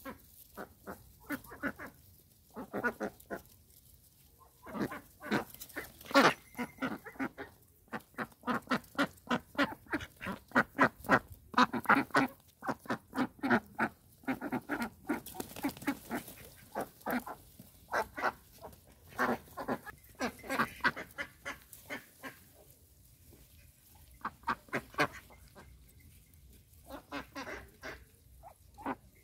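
A flock of Indian Runner ducks quacking, in rapid runs of short calls broken by brief pauses.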